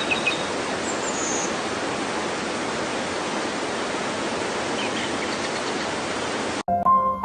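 Steady rushing water, with a couple of faint bird chirps over it. It cuts off suddenly near the end, giving way to piano music.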